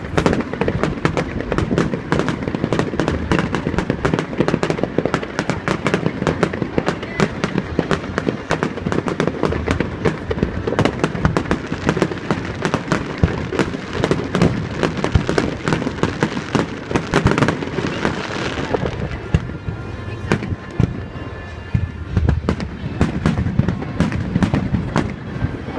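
Fireworks finale barrage: many shell bursts and crackles a second, thinning for a few seconds after the middle before picking up again. Strong wind buffets the microphone throughout.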